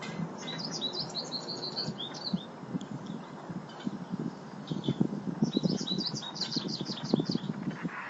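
Small songbirds chirping in two bouts of quick, short, high chirps, with soft low thumps underneath.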